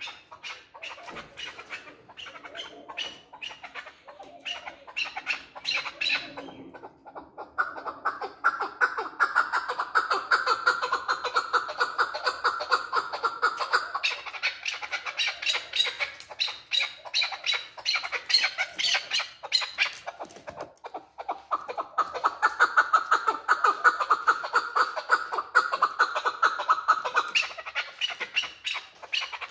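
Male chukar partridge calling: long runs of rapid repeated chuk notes, swelling into two long loud bouts separated by a brief pause.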